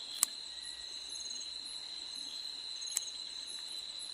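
Crickets trilling in one steady high-pitched tone, with another insect's short pulsed chirps above it. Two sharp clicks stand out, one just after the start and one about three seconds in.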